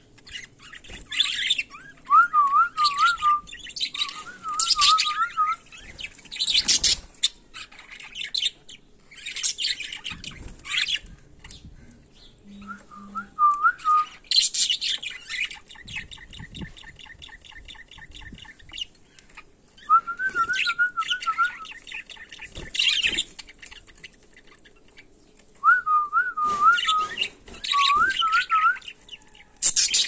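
A flock of budgerigars chattering, with sharp chirps and squawks throughout and a buzzy, pulsing rattle in the middle. A clear, wavering warbled whistle comes and goes several times among them.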